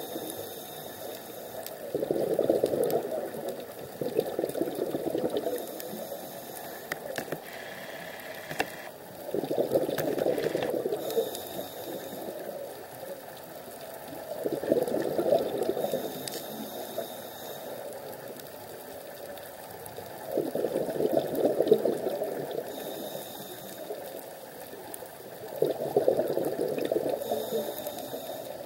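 Scuba diver breathing through a regulator, underwater: a short hiss on each inhale, then a gurgling rush of exhaled bubbles lasting about two seconds. The cycle repeats about every five to six seconds, five times.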